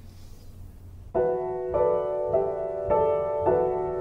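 Slow piano music begins about a second in, with notes struck roughly every half second over a faint low hum.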